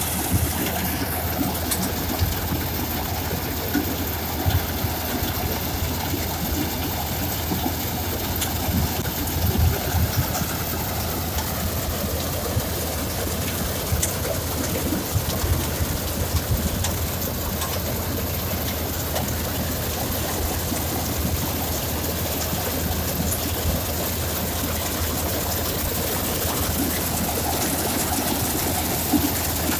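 Rice combine harvester running steadily: a constant low engine drone with machinery noise and occasional knocks.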